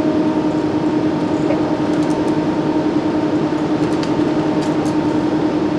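Steady machinery hum of an industrial plant room: a constant drone with one strong low tone over an even rushing noise.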